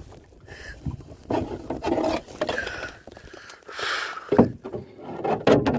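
Paddling an outrigger canoe: the paddle blade swishing and splashing through the water in uneven strokes, with a few sharp knocks of the paddle against the canoe's wooden gunwale, the loudest two near the end.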